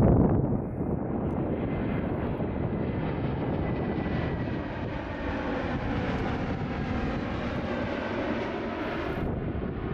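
Jet airliner engines: a steady rushing noise with a faint high whine, the hiss growing brighter over the first few seconds. A louder low rumble drops away about half a second in.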